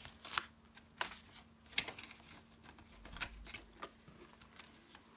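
Crinkly rustling and crackling of polymer banknotes and clear plastic binder pockets being handled as a note is put into a cash envelope. The sound comes as short, irregular crackles.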